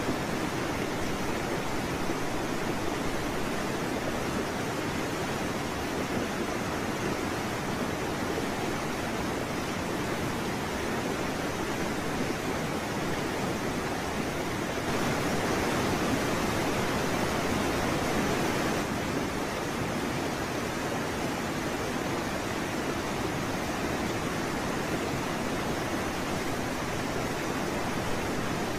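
A steady rushing hiss with no distinct events, a little louder for a few seconds in the middle.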